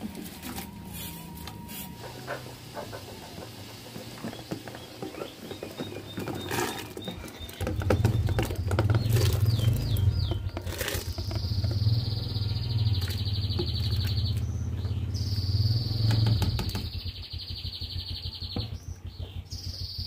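Utensils knocking and scraping against an aluminium cooking pot, then a loud low hum that starts about eight seconds in and fades out about eight seconds later. Birds chirp, and a high, fast-pulsing trill runs through the second half.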